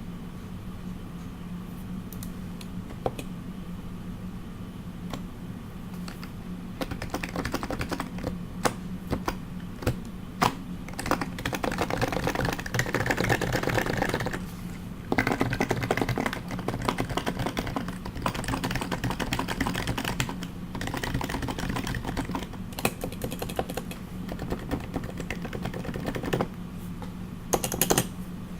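Custom Topre HHKB JP keyboard with heavy BKE domes, silenced purple sliders and Hi-Pro keycaps, being typed on fast. A few single keystrokes come first, then continuous rapid typing from about six seconds in, with a short flurry of louder strokes near the end. A steady low hum runs underneath.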